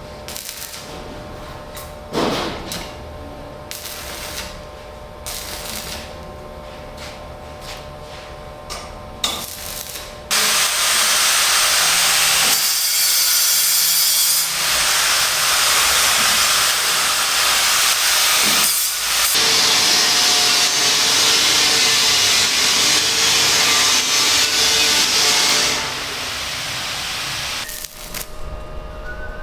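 Power tool running on a construction site, loud for about fifteen seconds from roughly ten seconds in, with two short pauses. Before it starts there are quieter steady tones and scattered knocks.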